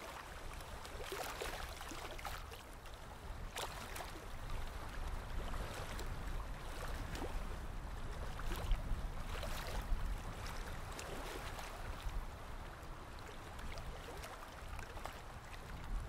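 Choppy river water sloshing and splashing irregularly against a pier's edge, over a steady low rumble of wind.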